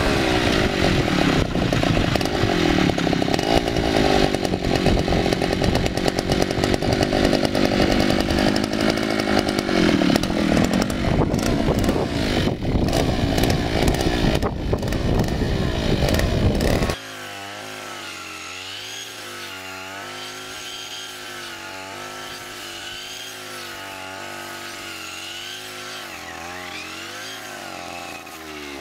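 Two-stroke petrol brush cutter running loud at high revs, its engine note dipping briefly about ten seconds in. About 17 seconds in the sound drops abruptly to a quieter passage of wavering pitched tones.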